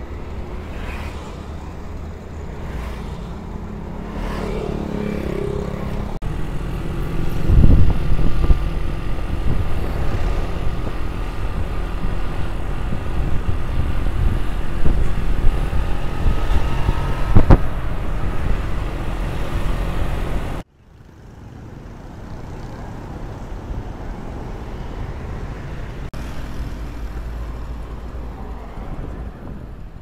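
Motorbike-ride traffic noise: a steady rumble of engines and road, with a couple of louder bumps. About two-thirds of the way through it cuts off abruptly to a quieter, steady outdoor hum.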